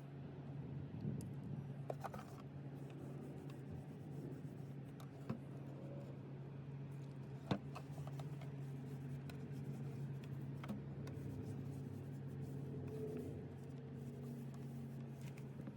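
Light rubbing and scraping with a few sharp clicks, over a steady low hum.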